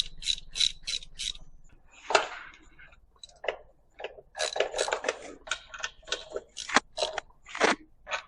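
Hand ratchet wrench clicking in quick strokes as valve cover bolts are loosened, with short pauses between runs of clicks.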